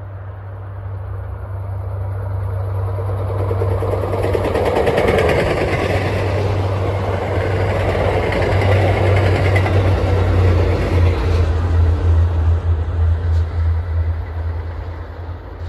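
A train passing close by: its rumble and rail noise swell over the first few seconds, stay loud through the middle and fade near the end, over a steady low hum.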